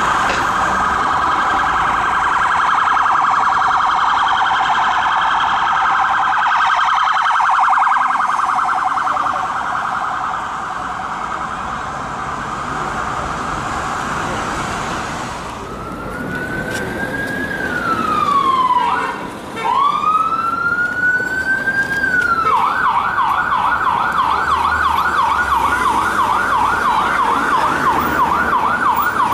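Emergency vehicle sirens. A fast-warbling siren runs for about fifteen seconds; then a slow wail rises, falls and rises again. Near the end it switches to a quick yelp at about four sweeps a second, from a BMW X5 police car responding on blue lights.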